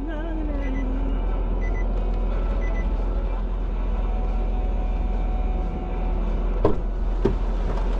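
Steady low rumble of a motor vehicle on the move, with three faint short beeps about a second apart near the start and two sharp knocks near the end.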